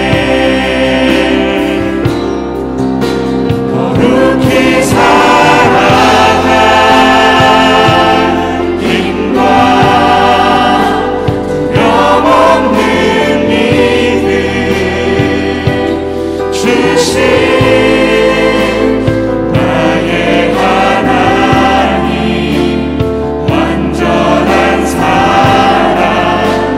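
A group of singers performing a Korean contemporary worship song together, backed by a live praise band with acoustic guitar and keyboards.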